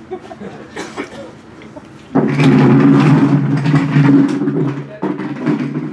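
A motor vehicle engine running close by, starting suddenly about two seconds in as a steady low hum for about three seconds, then easing off.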